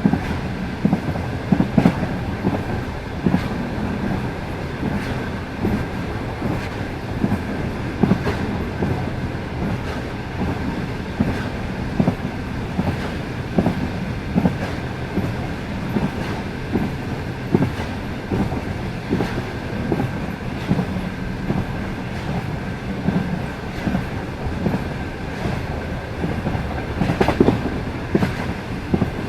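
Passenger train running at speed: a steady rumble with the wheels clacking over the rail joints every second or two, a louder run of knocks near the end, and a thin steady whine over it.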